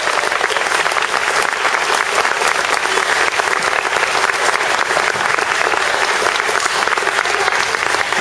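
Audience applauding: many hands clapping at once, loud and steady.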